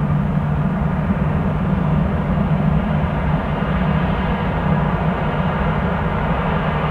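Boeing 737-400's CFM56 turbofan engines running at high power on the takeoff roll: a loud, steady jet rumble with a strong low hum.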